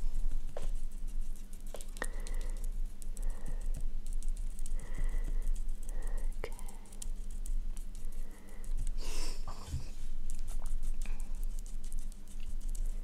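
Close-miked touches on the camera lens as green eyeshadow is applied: a steady run of soft tapping, scratching and rubbing made up of many quick small clicks. A steady low hum runs underneath.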